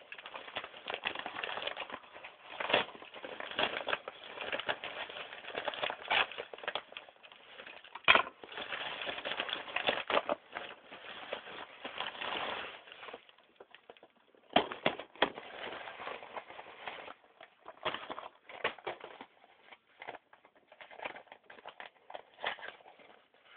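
A package being opened and handled by hand: crackling, rustling packaging with many sharp clicks and taps. It is dense for the first dozen seconds or so, then thins to scattered clicks.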